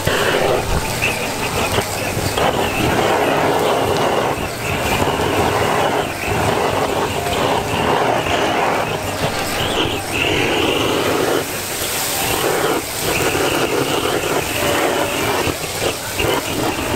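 Handheld butane blowtorch firing in repeated blasts of a second or two over a whole squid skewer sizzling on a hot flat griddle.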